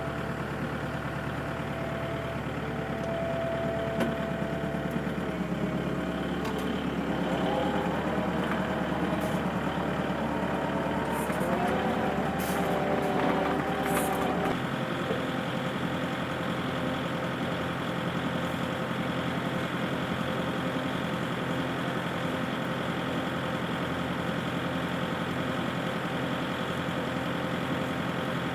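A vehicle engine running steadily. Partway through its note shifts and rises for several seconds, then drops back to a steady run.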